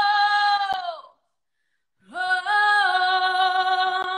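A woman singing a cappella: a long held note that fades away about a second in, a brief silence, then a second long held note that slides in and steps up slightly in pitch.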